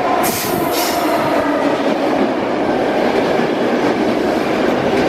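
Trenitalia passenger train running along the platform, a steady loud rumble of wheels on rail with a faint whine, and two short high hisses in the first second.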